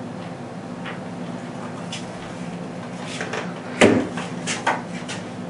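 Handling noise from an air rifle being turned over in the hands: a cluster of light knocks and clicks from about three seconds in, the loudest a single thump. A steady low hum runs underneath.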